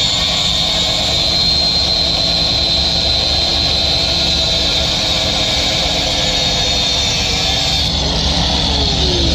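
Angle grinder cutting out a metal plate, a steady loud high-pitched whine and grinding; about eight seconds in the cutting stops and the motor's pitch falls as it winds down.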